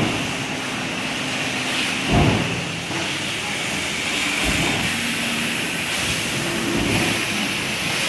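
Precision stamping press on a stainless steel coil feeding line, running automatically: a low thud about every two and a half seconds, three times, over the steady hiss and hum of the running line.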